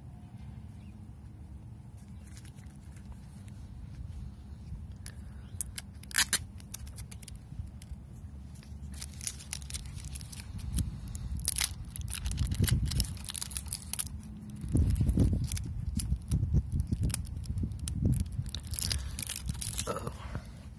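Protective plastic film stickers being peeled off a new smartwatch: short crackling, tearing peels. They come once about six seconds in and then often through the second half, over a low rumble of hands handling the watch.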